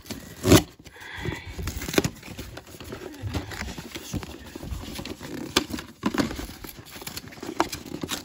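Packing tape being torn off a cardboard box, then its cardboard flaps and paper lining being pulled open by hand: irregular tearing, scraping and rustling of cardboard and paper, with a sharp knock about half a second in.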